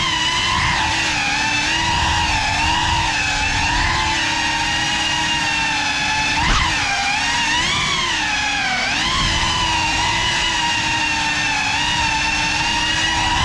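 FPV quadcopter's brushless motors and propellers whining, heard close from the camera mounted on the drone, the pitch rising and falling with the throttle. A short sharp jump in pitch and level about six and a half seconds in.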